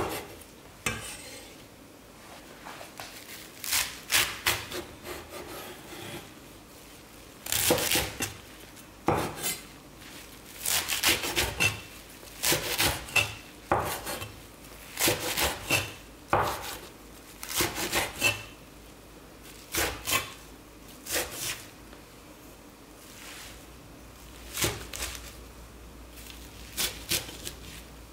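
Chef's knife chopping a stack of perilla leaves on a wooden cutting board: runs of quick, sharp knocks of the blade on the board, with short pauses between runs.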